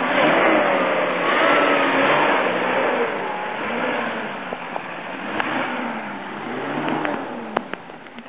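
Off-road 4x4 truck engine revving up and down several times as it climbs a muddy hill, with a constant rush of tyre and mud noise. There is a sharp click near the end.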